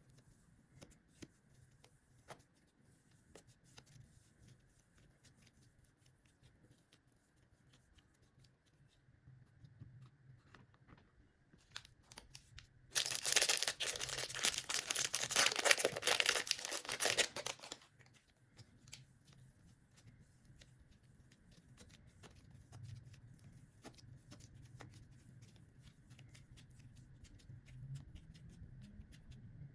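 Faint scattered clicks and crinkles of hands handling craft material, then a loud, dense crackling, tearing noise for about five seconds a little before the middle, after which the faint clicks resume.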